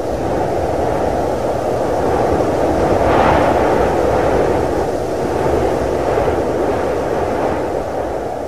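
Intro sound effect: a loud, steady rushing rumble with no tune, swelling about three seconds in and easing off near the end.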